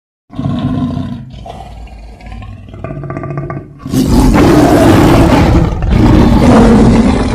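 Tiger-like creature roar sound effect: a lower growl, then about four seconds in a loud, rough roar that swells twice.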